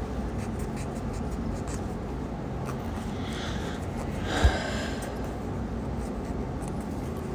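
Steady low background hum. About four and a half seconds in there is a short breathy sound with a light knock.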